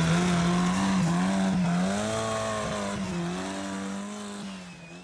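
A motor-vehicle engine running at steady high revs, its pitch wavering slightly, fading out near the end.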